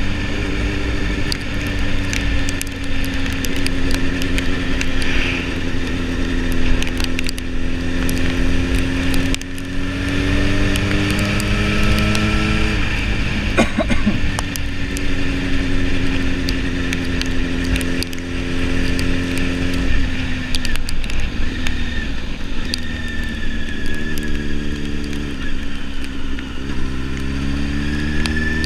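Sport motorcycle engine under way, with the rush of riding wind over the microphone. The engine pitch sinks slowly as the throttle eases, jumps at gear changes twice, steps through a quick run of changes, then rises again near the end as the bike accelerates.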